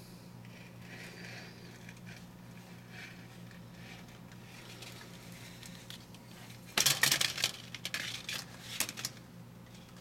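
A low steady hum, then about seven seconds in a loud burst of sharp clicking and clattering lasting about two seconds.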